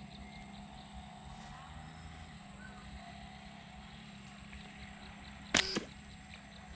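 A rubber-band slingshot fired once, about five and a half seconds in: one sharp, brief snap as the bands are released.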